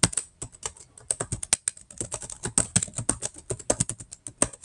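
Typing on a computer keyboard: a quick, uneven run of keystroke clicks as a short sentence is typed out.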